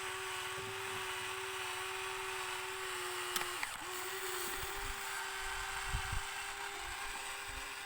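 Small electric motor whining at a steady pitch, dipping briefly a few times as it takes load, with low knocks and rumbles in the second half.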